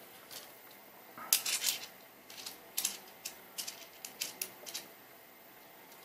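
Small Falcam F22 quick-release camera mount parts clicking and tapping as they are handled and fitted, a scattering of sharp clicks most of them between about one and five seconds in.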